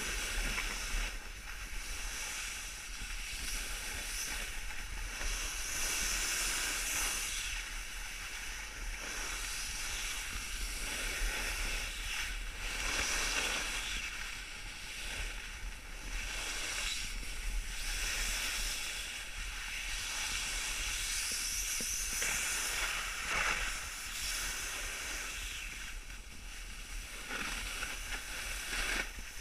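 Steady hiss of snow scraping under a rider sliding down a ski slope, swelling and easing every few seconds, with a low rumble of wind on the camera microphone.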